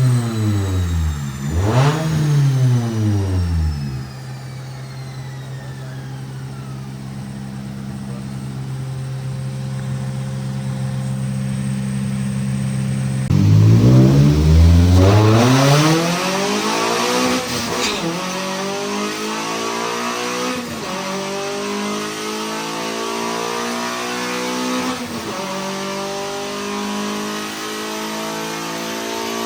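Tuned 1.8-litre four-cylinder car engine with stage 2 cams, revved hard during tuning. It blips up and down twice, holds a steady rpm for several seconds, then suddenly sweeps up and down again and climbs slowly in pitch, with a few short dips.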